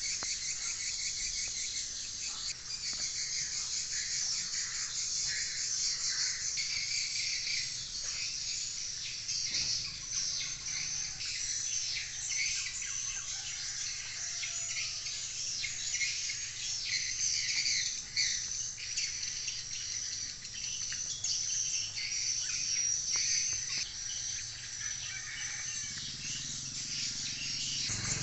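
Insects and birds calling together: a steady high trilling with many quick chirps over it.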